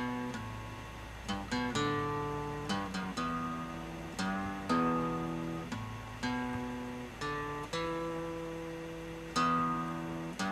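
Background music: an acoustic guitar strumming slow chords, each struck sharply and left to ring and fade before the next, sometimes two strums in quick succession.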